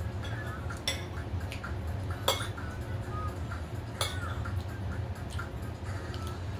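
Cutlery clinking against plates and bowls during a meal: three sharp clinks spread over a few seconds, over a steady low hum.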